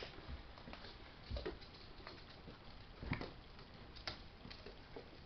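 Tibetan terrier puppies scuffling on a wooden floor: scattered light taps and scrapes of paws and claws, with a louder knock about three seconds in.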